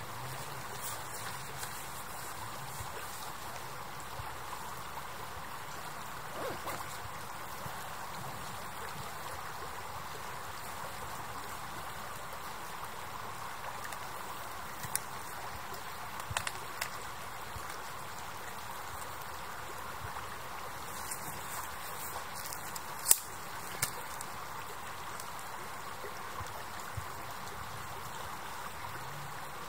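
A river's water flowing and rushing steadily, with a few brief sharp clicks over it, the loudest about three-quarters of the way through.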